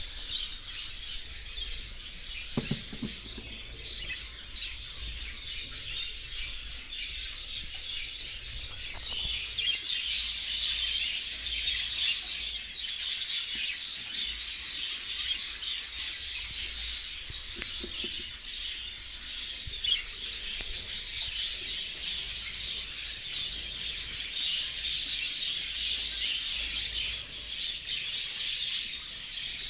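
A flock of budgerigars chirping and chattering continuously, many birds at once.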